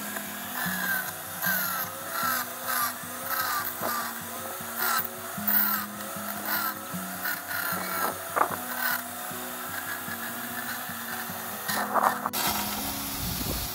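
Homemade bandsaw with bicycle wheels and a washing-machine motor, its blade rasping steadily through a hard wooden board, over background music. The cutting sound stops suddenly near the end.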